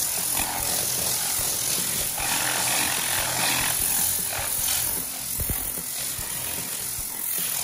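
Tornador compressed-air cleaning gun spraying a very fine mist of diluted cleaner over an engine bay: a steady hiss of rushing air that swells and eases several times.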